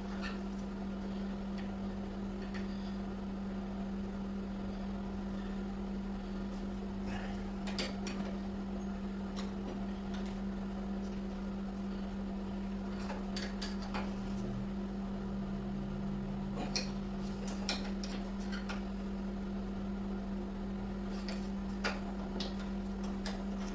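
Steady low hum with a scattered handful of faint clicks and light taps as brake parts and tools are handled while the rear brake caliper pistons are pushed back.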